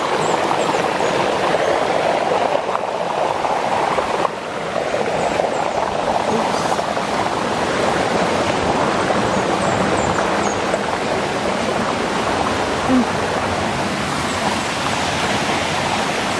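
Flowing stream water, a steady rushing noise.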